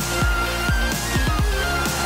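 Electronic dance music with a heavy kick drum that drops in pitch on each hit, about two hits a second with a quicker run in the middle, under a held synth note.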